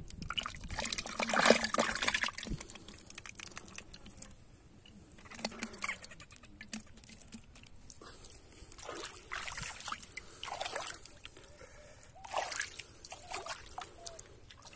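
Wet pond mud squelching and crumbling as it is dug apart, with watery trickles and small crackles. Loudest in the first couple of seconds, then in short scattered bursts.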